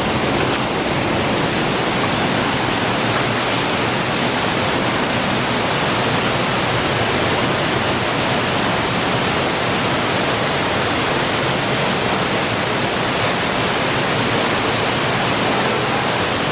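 Underground cave stream running loud and steady, a continuous rush of water echoing in the passage.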